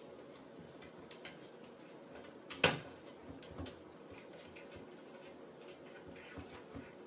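Quiet room noise with a few faint clicks and one sharp knock a little under three seconds in.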